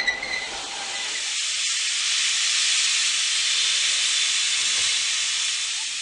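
Steam hissing out at the front of Slovenian Railways steam locomotive SŽ 33-037, a class 33 2-10-0, venting low near the cylinders. A long, steady hiss that builds over the first couple of seconds and starts to fade near the end.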